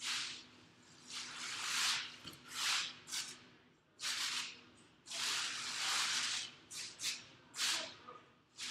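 Long-handled mops wiping a vinyl wrestling mat: a run of irregular swishing strokes, some short and some drawn out, over a faint steady hum.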